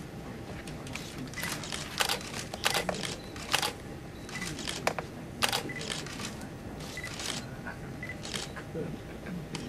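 Camera shutters clicking at irregular intervals, sometimes two in quick succession, with a few short high beeps among them, over a low room murmur as photographers take pictures.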